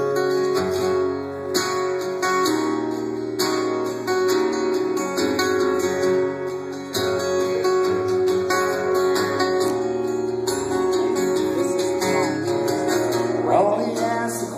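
Acoustic guitar played live, a steady chord-based instrumental intro leading into a song.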